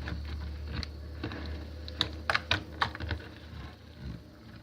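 Homemade glue slime being squeezed and stirred by hand, giving irregular sharp clicks and pops, with a bunch of them about two to three seconds in.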